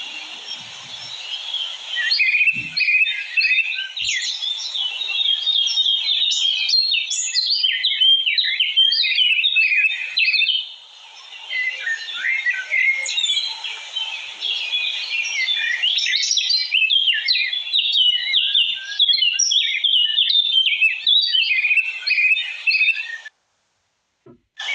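Many small birds chirping and twittering in a dense, overlapping chorus of quick, high calls. It thins briefly about halfway through and cuts off abruptly near the end.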